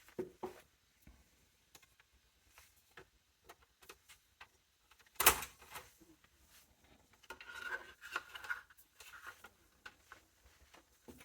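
Clicks and clatter of metal and plastic desktop-computer parts being handled, with one sharp clack about five seconds in and a short rattle a few seconds later.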